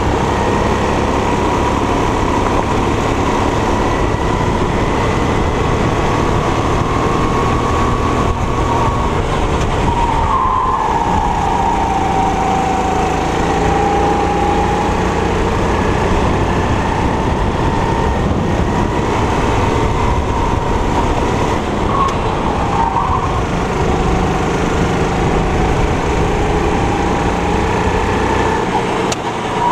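Four-stroke 270 cc kart engine running hard on a lap. Its note falls and climbs again a few times as the kart slows for corners and accelerates out, over a steady rush of wind on the microphone.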